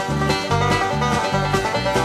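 Background music: an upbeat string-band tune with quick plucked notes over a bass line keeping a steady beat.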